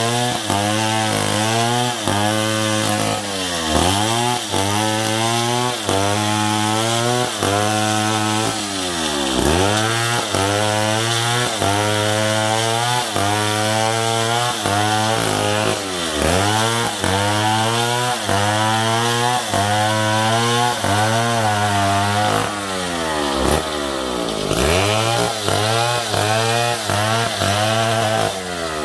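Stihl 070 two-stroke chainsaw running at high revs, its engine pitch dipping and climbing back again and again, about every second or two, as it cuts into wood.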